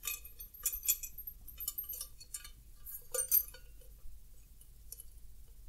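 Scattered light metallic clinks and taps as a chromed steel beer tower tube and its metal fittings are handled while a beer hose is fed up through the tube, with a sharper knock about three seconds in.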